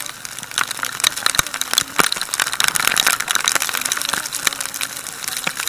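Rain striking the camera and its microphone on a moving motorcycle: a dense run of sharp ticks over a steady hiss of wind and wet-road spray, heaviest around the middle.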